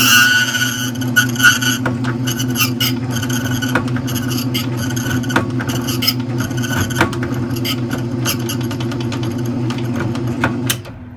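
Key duplicating machine running: a steady motor hum under the scraping of the cutter milling a copy of a Master padlock key, broken by many sharp clicks. It shuts off near the end.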